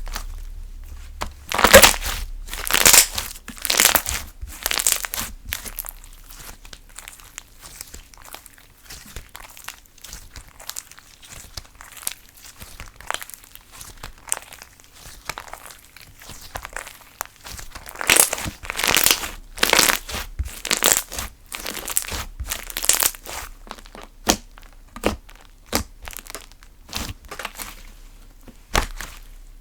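Thick smoothie-type slime being squished and stretched by hand, crackling and popping with clusters of sharp little clicks. The crackling is loudest in two spells, a couple of seconds in and again past the middle, with softer popping between.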